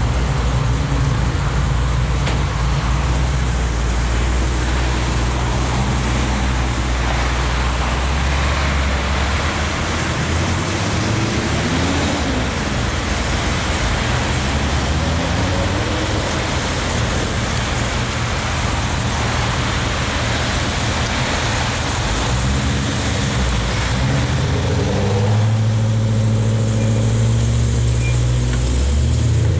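V8 car engines running amid road traffic noise, with an engine note rising and falling briefly about twelve seconds in and a steady engine rumble coming up near the end.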